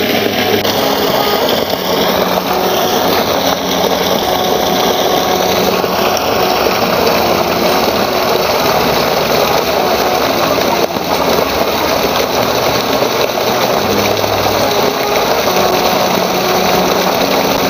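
Steady, loud machine noise running without a break, with a faint low hum in it.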